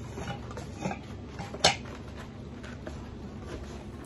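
Metal camping cook pot handled out of its fabric bag: its wire bail handle and lid clink sharply once, with a smaller clink just before, amid faint rustling of the bag.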